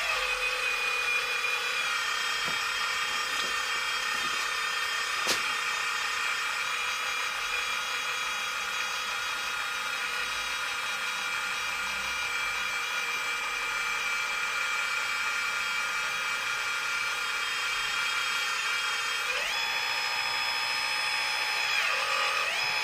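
Electric hydraulic pump of a scale-model Volvo L220E wheel loader whining steadily as the lift arms work, with a single click about five seconds in. Its pitch rises about three-quarters of the way through and shifts again near the end.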